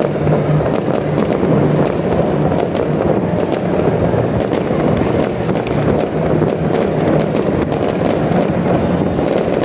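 Many fireworks going off at once: a continuous rumble of overlapping bangs, with sharp cracks and crackles several times a second.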